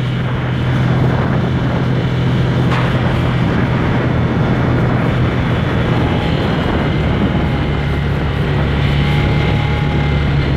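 Side-by-side utility vehicle driving at a steady pace along a gravel track. Its engine gives a steady drone under the noise of the tyres on gravel.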